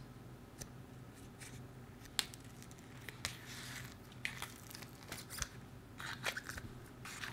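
Faint sticky clicks, crackles and squelches of a blue slime being poked, squeezed and pulled apart by fingers in a small plastic tub. The slime is about two weeks old and seems a little prone to tearing.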